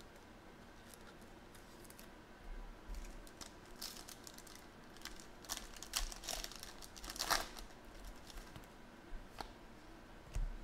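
Foil wrapper of a 2017 Panini Certified football card pack being torn open and crinkled by hand: scattered sharp crackles and rips, loudest about seven seconds in.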